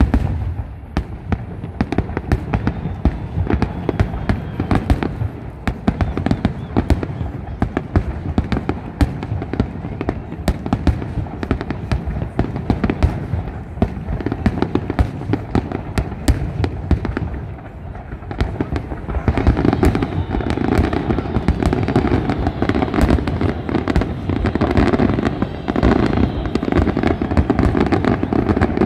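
Aerial fireworks shells bursting in quick succession, a continuous barrage of bangs and crackles. From about two-thirds of the way in the barrage grows denser and louder.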